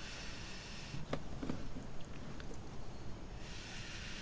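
Breath blown through a drinking straw onto wet acrylic paint: a soft airy hiss at the very start and again near the end, with a few faint clicks between.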